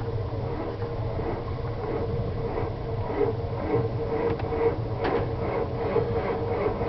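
1992 Ford 7.3 IDI diesel V8 being cranked by its starter, turning over slowly and laboriously with a regular beat about twice a second without catching. The starter is failing: it drags as though the batteries were dying, which the owner blames on the starter itself, not the batteries or wiring.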